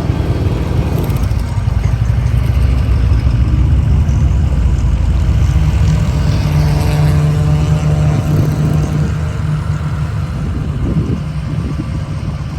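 Motor vehicle engines running at low speed: a steady low engine rumble, with a clearer engine note swelling through the middle and easing off later.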